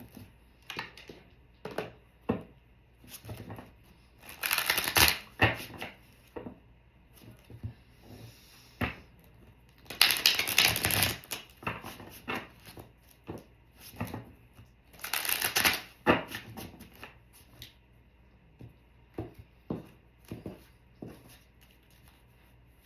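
Tarot cards being shuffled by hand: scattered card clicks and flicks, with three louder riffling bursts about five, ten and fifteen seconds in.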